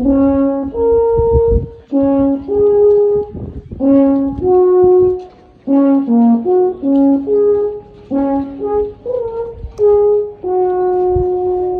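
A horn playing a slow tune, one held note at a time, in short phrases with brief pauses between them.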